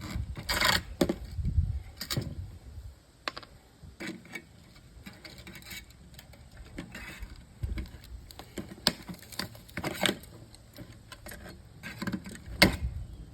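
Scattered sharp metallic clicks and taps of needle-nose pliers and small metal parts as copper pieces are worked free from an old television set's insides.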